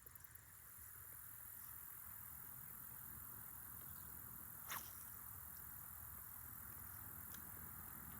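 Faint, steady outdoor background hiss, with one brief sharp click or chirp about halfway through.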